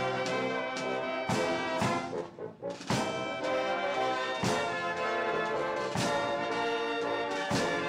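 Military brass band playing: trumpets, trombones and saxophones sounding full chords over bass drum strikes on the beat. The music breaks off briefly about two and a half seconds in, then comes back in with a drum stroke.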